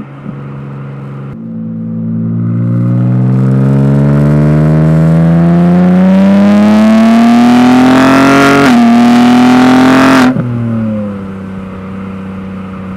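BMW G80 M3's twin-turbo inline-six exhaust under hard acceleration, the revs climbing steadily for several seconds. A brief dip in pitch comes near the two-thirds mark, then the note cuts back sharply as the throttle is lifted and settles to a steady lower drone.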